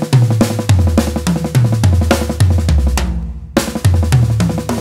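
Acoustic drum kit playing a fast fill in right-left-left sticking as 16th notes, moving around the snare and toms so the drum pitches step down over and over, with bass drum underneath. The playing stops briefly about three seconds in and then starts again.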